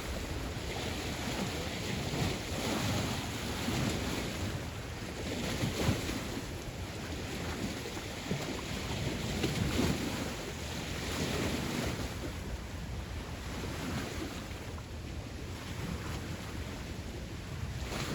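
Wind buffeting the microphone outdoors: a steady rushing noise that swells and eases every few seconds.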